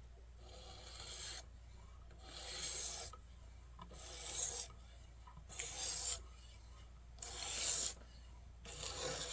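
Steel kitchen-knife blade drawn by hand across a diamond sharpening stone, about six scraping strokes of roughly a second each at an even pace. The knife is being reprofiled: the diamond is grinding away steel from an extremely dull edge.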